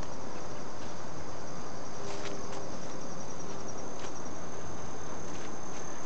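Insects chirping in a steady, high, rapidly pulsing trill, with a few soft clicks of footsteps on a dirt trail.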